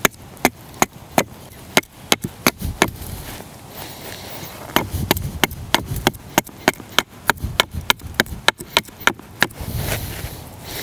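Gränsfors Bruk small forest axe chopping at the end of a wooden stick held upright against a log: a quick run of short, sharp strikes, about two to three a second, that stops about a second before the end. The strikes are shaping the stick's end into a working end for a digging stick.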